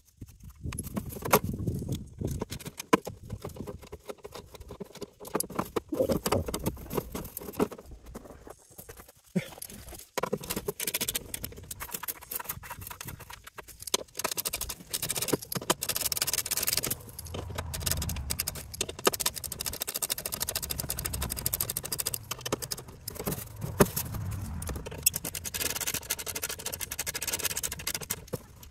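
Irregular clinks, knocks and scrapes of bolts and the thin plastic factory skid plate being worked loose from underneath a CFMoto UForce 600.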